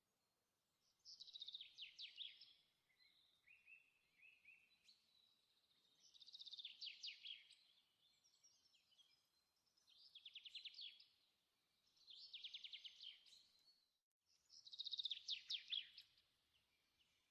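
Faint birdsong: a songbird sings five rapid trilled phrases, each about a second long, a few seconds apart, with softer short notes between them.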